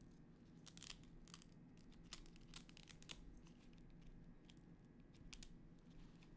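Faint, scattered clicks and crinkles of small parts and wiring being handled on a desk, over a low steady room hum.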